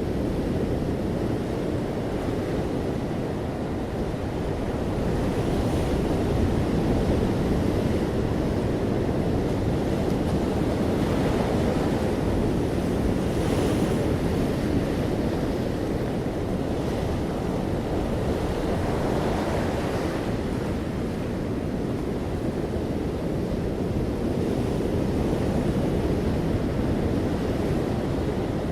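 Ocean waves breaking and washing onto a shore in a continuous surf, swelling and easing slowly in loudness, with a steady low rumble.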